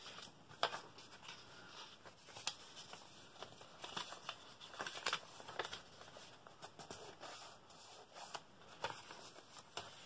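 Printed collage paper being handled and laid onto a journal page: soft rustling and crinkling with scattered light taps, a few sharper ones about half a second in and near the end.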